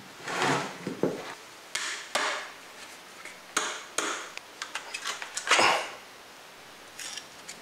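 Wooden table leg pieces knocking and scraping against each other and the workbench as they are handled and pulled apart, a string of separate short knocks with a quick patter of small clicks a little past halfway.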